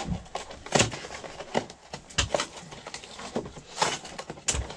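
Cardboard box of deep-dish pie shells being opened and handled: an irregular string of sharp crinkles, rustles and light taps of cardboard and packaging.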